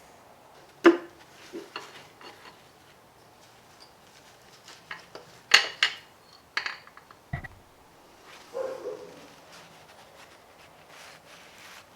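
Scattered sharp metal clinks and knocks of hand tools and engine parts being handled while pulling a piston and connecting rod out of a Gen 4 Hemi V8, with one dull low thump about seven seconds in.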